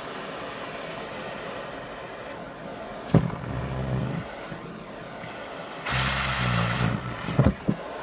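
Canister vacuum cleaner running steadily through a bare wand nozzle while it sucks at a cotton sock on a foot. About three seconds in there is a sharp pop, then a low buzz for about a second as the sock is drawn against the nozzle. The buzz comes again, louder, at about six seconds, followed by a few knocks near the end.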